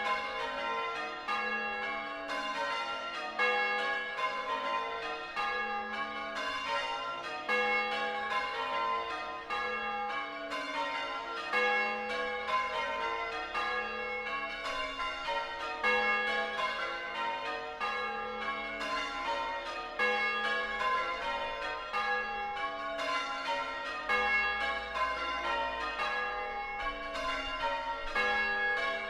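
A ring of six church bells (tenor about 8 cwt, in A-flat) being rung in changes: a steady, unbroken sequence of bell strokes, with a louder stroke coming round every few seconds.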